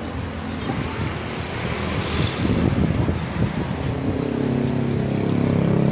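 Wind buffeting the microphone over outdoor noise, with a motor vehicle's engine running steadily, clearer in the second half.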